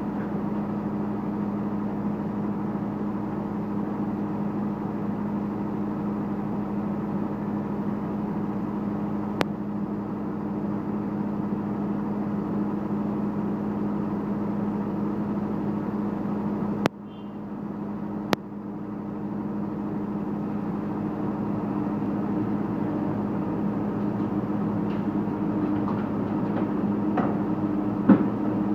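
Demolition excavators' diesel engines and hydraulics running with a steady, even drone. Near the end, a few sharp cracks and crunches as the demolition jaws break concrete and debris falls from the facade.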